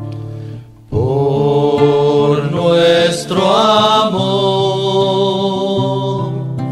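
Church choir singing a slow Spanish-language hymn to acoustic guitar. A strummed guitar chord fades, then the voices come in together about a second in, holding long notes and sliding between them.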